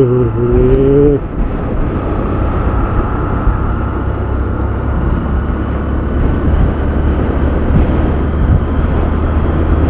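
Strong wind buffeting the microphone over a Bajaj Discover motorcycle's single-cylinder engine running steadily while riding.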